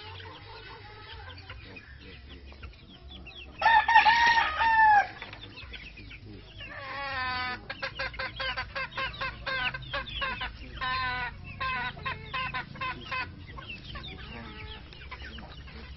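Chickens calling: a rooster crows once, a single call of about a second and a half starting about four seconds in. After it come several seconds of quick, repeated short clucking calls.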